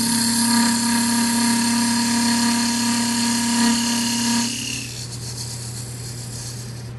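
A woodturning tool, a parting tool, cuts steadily into wood spinning on a lathe, making a hissing scrape with a steady ringing tone. It stops about four and a half seconds in, once the cut reaches depth, leaving the lathe's quieter running hum.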